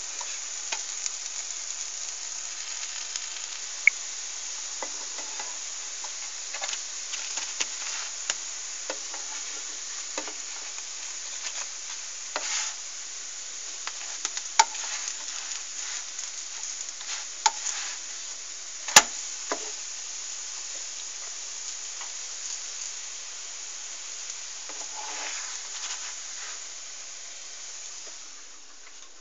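Buckwheat crêpe sizzling steadily in a frying pan, with scattered sharp clicks and scrapes of a spatula against the pan, one much louder than the rest about two-thirds of the way through. The sizzle dies down near the end as the crêpe comes off the heat.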